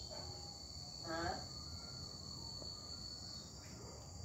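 Steady, high-pitched drone of night insects, with a brief human voice about a second in.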